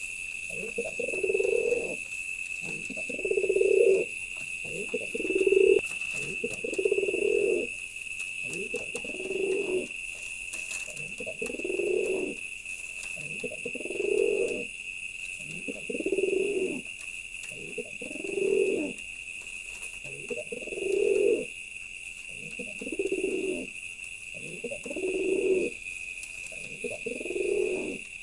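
Male domestic pigeon cooing over and over, a low throaty coo phrase roughly every two seconds. A steady high-pitched whine runs underneath.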